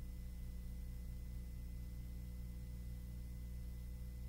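Steady low drone with a few faint, unchanging high tones above it: the background hum of an aircraft's intercom audio feed.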